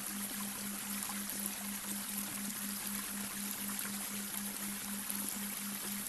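Babbling brook running steadily, with a low electronic tone beneath it that pulses about four times a second: a delta-wave binaural beat.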